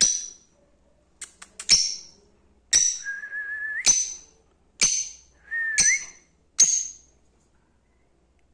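Lovebird calling: a series of sharp, shrill chirps about a second apart, a couple of them led in by a held whistled note that rises at its end.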